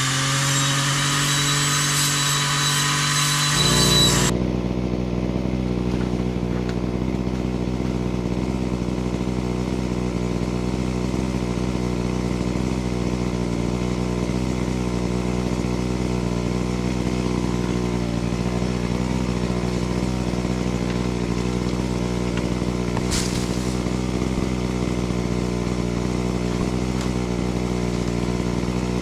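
Small petrol engine running at high revs with its pitch rising, then dropping sharply to a steady idle about four seconds in and idling on evenly; a brief hiss about 23 seconds in.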